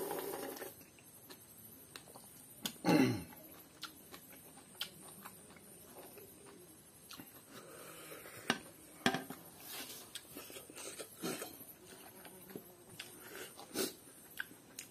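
A person eating with their fingers from a plate: a slurp from a bowl at the start, then chewing, lip smacks and fingers clicking and scraping on the plate. About three seconds in there is one short, loud sound that falls steeply in pitch.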